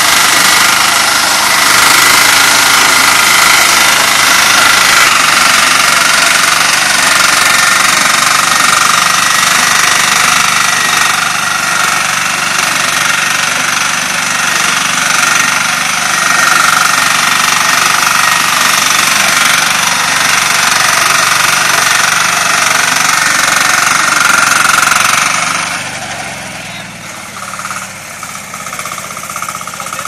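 Small walk-behind corn harvester's engine running loud and steady as the machine cuts and picks its way through corn stalks, a rhythmic mechanical clatter. Near the end it drops to a much quieter running sound.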